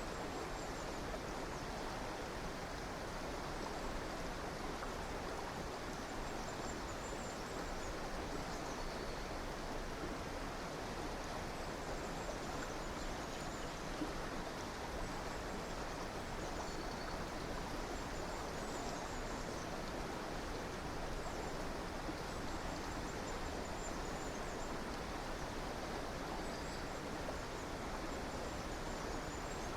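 Steady rushing of a stream or small river. Faint high bird chirps come through above it every few seconds.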